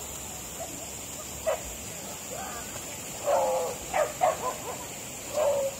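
A dog whining and yipping in short high cries, sparse at first, then several loud ones in quick succession in the second half: a dog balking at being led into the creek water.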